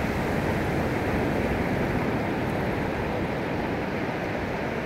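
Steady wind and surf noise on a beach, an even rushing with uneven low rumbling from wind on the microphone and no distinct event.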